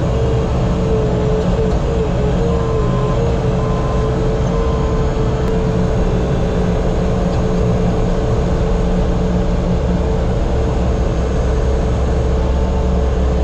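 A heavy work machine's engine running steadily, with a high whine on top that wavers for a couple of seconds near the start.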